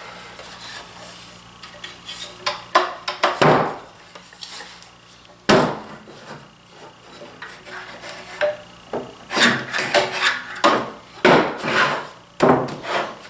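Hands handling a Festool TS 55 track saw and its parts on a bench: irregular knocks, clicks and rubbing, with louder clusters of scraping about nine to thirteen seconds in.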